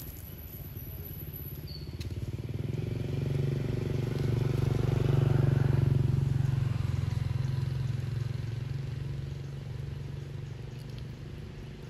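A motor vehicle engine passing by, a low steady hum that grows louder to a peak about halfway through and then fades away.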